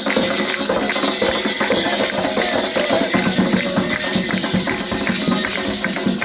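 Candomblé ritual percussion: atabaque hand drums beaten in a fast, even rhythm with rattles or shakers, and voices singing over it.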